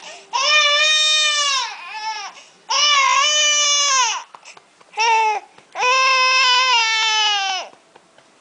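A young infant crying: four high wails, three long ones of about a second and a half and one short one, each dropping in pitch as it ends.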